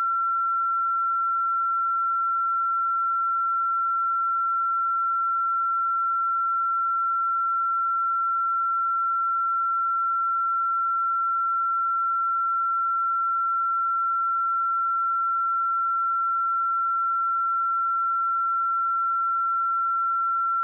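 A steady 1356 Hz sine-wave test tone: one pure, unchanging high tone at constant loudness.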